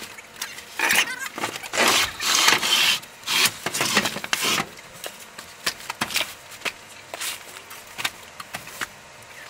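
Cardboard moving boxes being handled and stacked inside a moving truck's cargo box: a run of scrapes, rustles and knocks, dense for the first half, then fewer, shorter clicks and taps.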